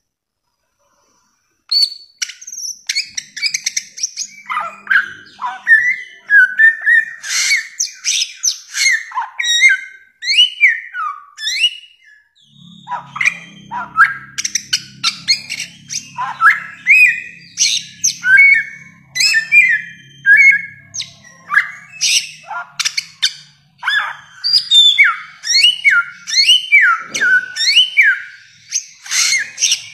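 Bare-throated whistler singing a long, fast run of varied whistles and chattering notes, many of them sharply rising or falling, starting about two seconds in.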